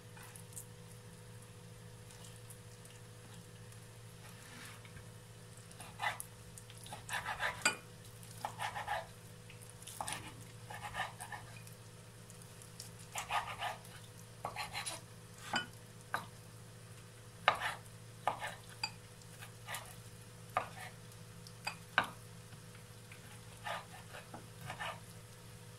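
A knife cutting raw chicken breast into cubes on a wooden cutting board: short knocks of the blade on the board in irregular clusters from about six seconds in, over a steady low hum.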